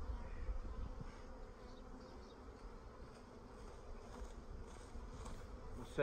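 Honeybees buzzing over an opened hive box of a queenless, laying-worker colony: a faint, steady hum.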